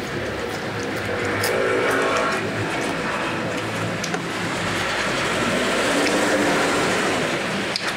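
Motor vehicles passing close by, the engine and road noise swelling twice: once about two seconds in and again, louder, around six seconds in. A few light clicks of cutlery on dishes.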